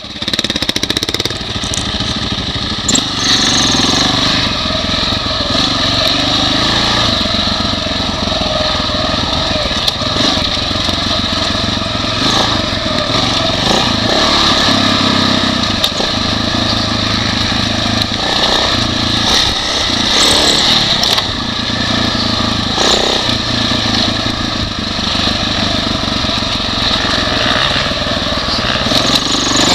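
The single-cylinder four-stroke engine of a 2006 Husaberg FE550e dirt bike running under way on a rough trail, its pitch shifting with the throttle, with occasional knocks from the suspension and chassis over bumps.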